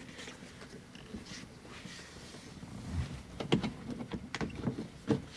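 Rubber door weather stripping being pressed back onto the truck's door opening by hand: faint rustling, then a series of sharp knocks and taps from about halfway through as it is seated.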